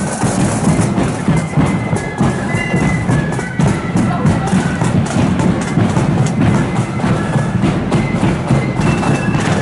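Street marching band playing: a high, held-note wind melody over steady drum beats, with a heavy bass drum.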